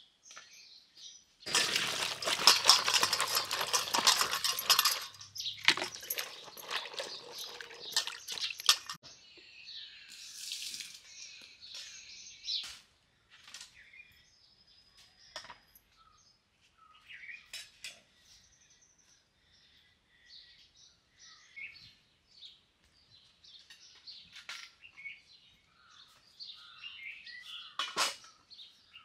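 Water splashing in a steel bowl as cut drumstick (moringa) pods are washed by hand, in two stretches over the first several seconds. Birds chirp afterwards, and there is a metallic clink near the end.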